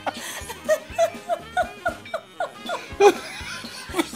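A person laughing in quick, short bursts, each one falling in pitch, over background music with a steady low beat.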